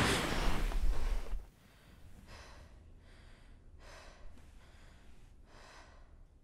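A young woman breathing heavily, just woken from a nightmare: three audible breaths about a second and a half apart. These come after the tail of loud music dies away in the first second and a half.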